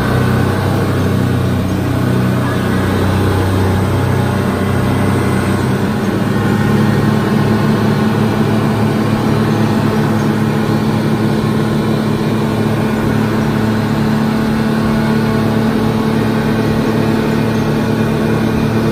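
Three outboard motors on a speedboat running at cruising speed, over the rush of the wake. The engine note changes about six seconds in, then holds steady.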